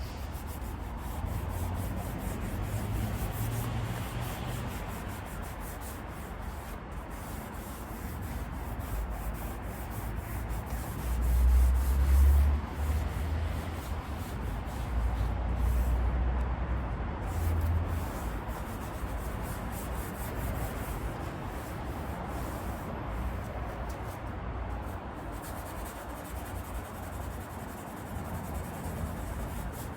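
Steady rubbing or hand-sanding on a leather car seat, with low rumbling swells of wind on the microphone around the middle.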